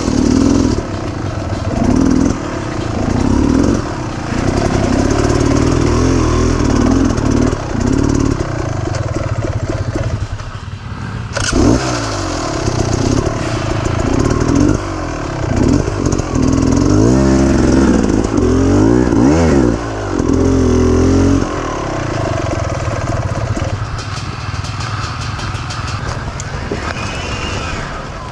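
Off-road dirt bike engine revving up and down as it is ridden, its pitch rising and falling again and again with repeated throttle blips. It eases off briefly about ten seconds in and again near the end.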